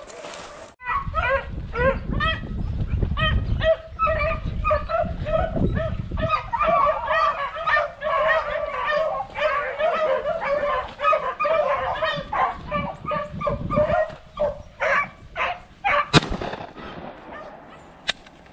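A pack of rabbit beagles baying steadily in chorus, the many overlapping short calls of hounds running a rabbit's trail. About sixteen seconds in, a single sharp crack cuts across the chorus as the baying thins out.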